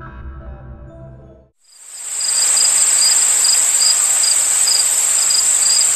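Intro music ends about a second and a half in. After a brief gap, a loud, steady, high-pitched insect chirring starts and carries on, with a faint regular pulse in it.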